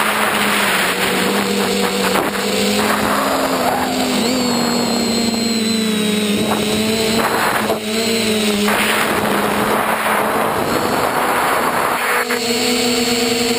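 Electric motor and propeller whine of a radio-controlled FPV aircraft in flight, its steady pitch stepping up and down every few seconds with the throttle, over a rush of air noise.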